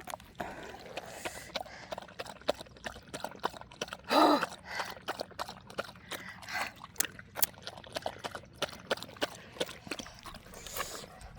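A dog lapping water, with many quick, irregular laps, and a brief louder sound about four seconds in.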